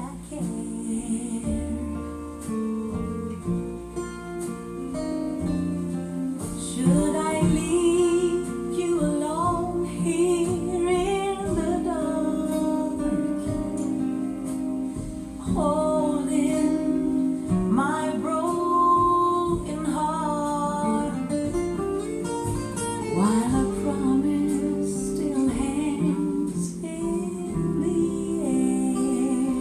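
Jazz ballad playing back with acoustic guitar and a wavering vocal melody, from a KT88 tube amplifier driving a home-built four-way speaker, picked up by a phone microphone.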